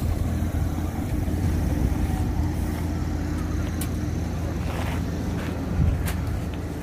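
An engine running steadily nearby as a low, even hum, with a few light knocks in the middle and near the end.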